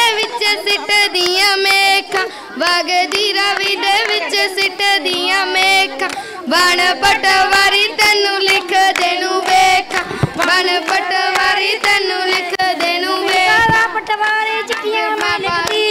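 Female voices singing a Punjabi boliyan folk song in a high, continuous melodic line.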